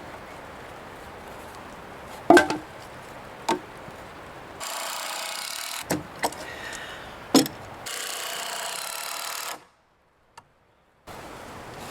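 Cedar boards knocking against each other and the rack frame as they are handled and set down: about five sharp wooden knocks, the first the loudest, with two stretches of steady hiss between them and a short dropout to silence near the end.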